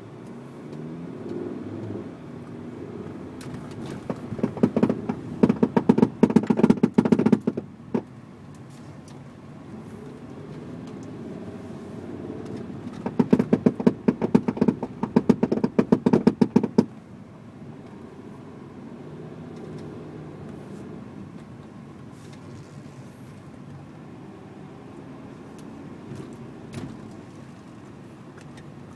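Volkswagen Touareg running, with two loud spells of rapid rattling a few seconds each, the second coming about ten seconds after the first. The owner calls it gearbox rattling.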